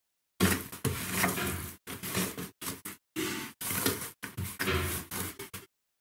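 A cloth scrubbing and rubbing over the plastic drain-filter hatch and its hinged lid on an LG washing machine, in irregular wiping strokes with light knocks of the plastic.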